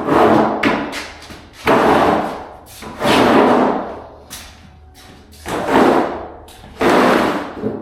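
Five loud rustling thuds, one about every one and a half seconds.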